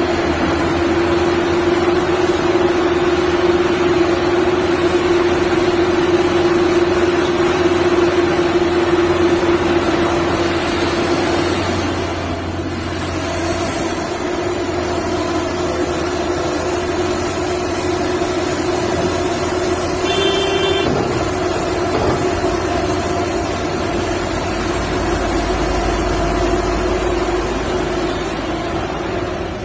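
Liebherr 954 excavator's diesel engine running steadily with a deep rumble. A brief horn blast sounds about two-thirds of the way through.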